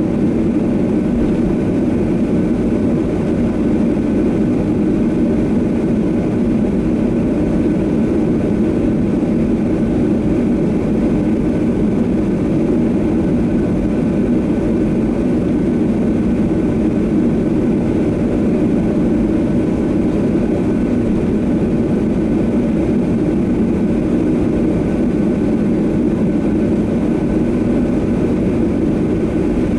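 Steady cabin noise inside a Boeing 737-800 taxiing on the ground, its CFM56-7B jet engines running at an even, unchanging level, heard through the cabin as a deep rumble with a faint whine on top.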